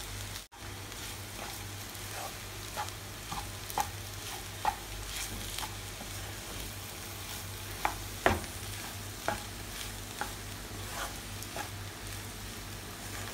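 Wooden spatula stirring and scraping mashed potato and grated carrot masala around a non-stick frying pan, with irregular light knocks against the pan over a steady sizzle of frying.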